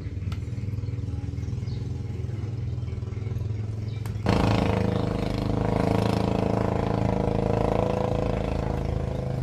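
Motorcycle engines idling steadily, a low even hum. It jumps louder about four seconds in.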